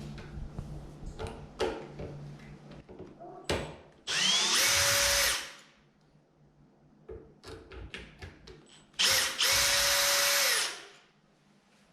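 Power drill backing out the two screws that hold a door latch: two runs of about a second and a half each, the motor whining up to speed, running steadily, then winding down. Light clicks and handling come before and between the runs.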